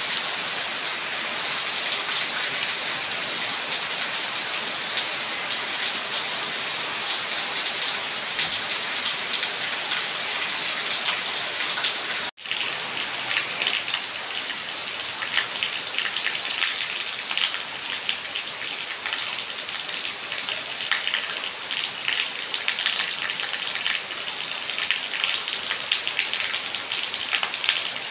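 Steady rain falling on wet stone and puddled ground. About twelve seconds in it breaks off for an instant and resumes, after which the splashes of single drops stand out more distinctly.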